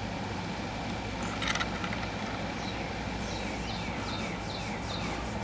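Steady hum of an air conditioner running, with a bird calling a series of quick, high, descending notes in the second half. A brief click about one and a half seconds in.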